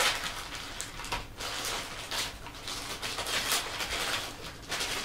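Thin plastic packaging bag crinkling and rustling in irregular bursts as it is handled and opened and small plastic packets are taken out of it.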